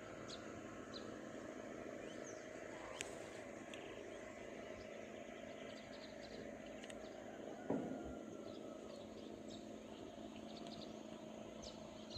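Outdoor ambience: a steady low hum with many short bird chirps scattered throughout, a sharp click about three seconds in and a single thump near eight seconds.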